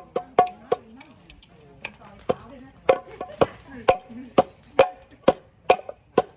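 Chinese lion-dance percussion: sharp drum and cymbal strokes with a short ringing tone, beating at about two a second, thinning for a moment about a second in before the steady beat resumes.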